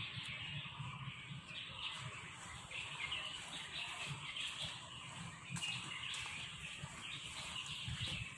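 Birds chirping, many small overlapping calls, over a low rumble.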